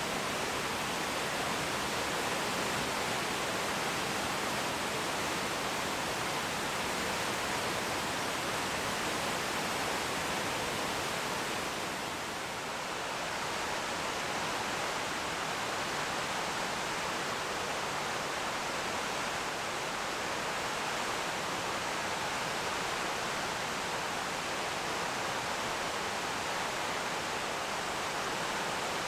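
Waterfall: a steady, even rush of falling water, dipping slightly about twelve seconds in.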